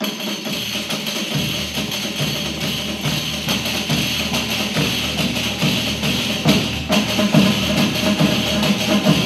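Intro music with a steady percussive beat.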